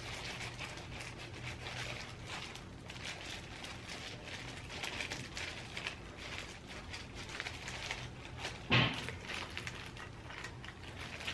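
Soft handling sounds of stuffing rice into fried bean curd pouches by hand: small sticky clicks and rustles over a low steady hum, with one louder thump about nine seconds in.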